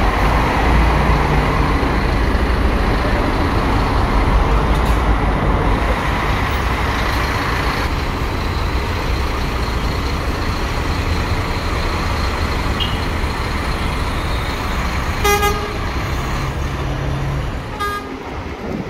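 Diesel bus engines running with a heavy low rumble as buses move through a bus terminal. Two short horn toots come near the end.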